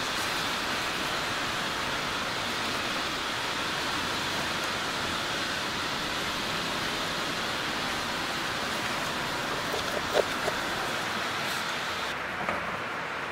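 Steady rushing noise of a Glasgow Subway train running through the tunnel, with a few brief clanks about ten seconds in and once more near the end. The hiss turns duller shortly before the end.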